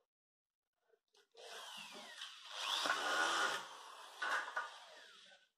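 Cordless drill-driver running for about four seconds, starting about a second in, its motor pitch rising and falling as it tightens a small nut.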